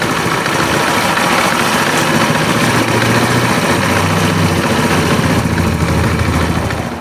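Chinese scooter's small engine idling steadily.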